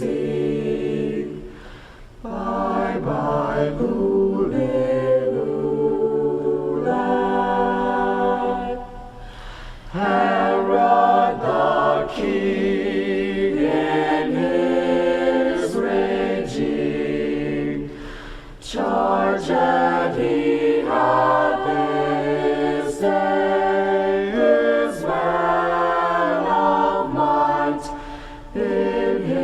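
High school choir singing a cappella in sustained, multi-part phrases, with brief breaks between phrases.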